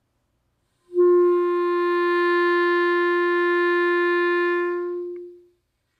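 Clarinet playing one long, steady note that starts about a second in, is held for about four seconds and then fades. It is sounded with a firm-sealed embouchure to demonstrate a good clarinet tone.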